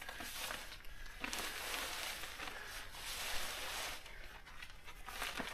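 Fabric top of a pop-up canopy rustling as it is pulled and draped over the folding metal frame, louder from about a second in until about four seconds in.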